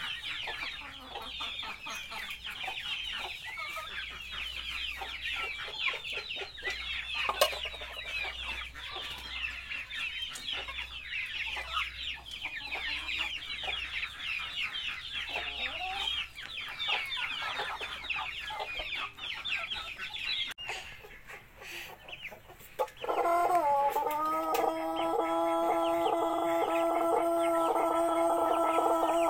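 For about twenty seconds, a dense, rapid, high-pitched chatter of poultry chirps and clucks. After a break, about 23 seconds in, a pelung rooster starts a long crow that rises at first and then holds a steady, ringing pitch, still going at the end. The rooster is recovering from CRD (ngorok) hoarseness.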